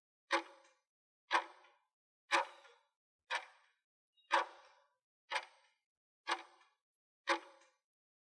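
Countdown timer sound effect: a clock-like tick once a second, eight ticks in all, each dying away quickly.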